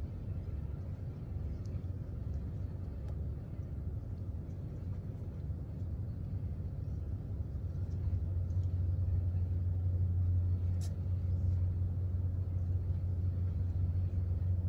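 Low outdoor rumble that swells louder about eight seconds in, with a few faint ticks.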